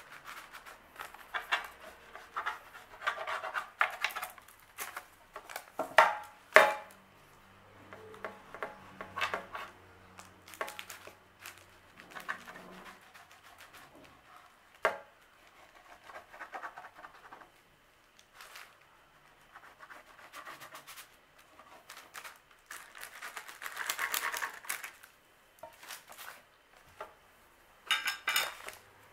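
A table knife cutting through a stack of phyllo pastry sheets on parchment paper over a foil-lined baking tray: scattered scraping and paper-and-foil rustling, with two sharp knocks about six seconds in.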